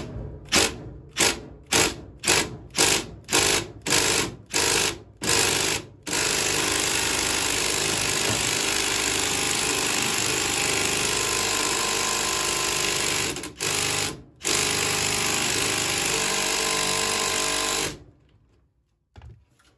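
Cordless impact driver hammering on a clothes dryer's blower wheel, first in a string of short trigger bursts about two a second, then in long steady runs with one short break, stopping near the end. The wheel does not come loose: it is on too tight for the impact driver to free it.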